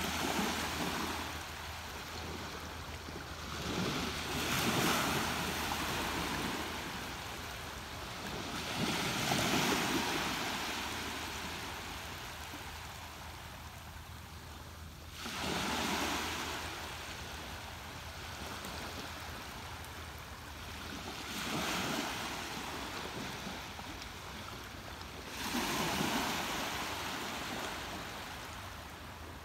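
Ocean waves breaking and washing up on the shore, one surge of surf every five or six seconds, each swelling and then drawing back.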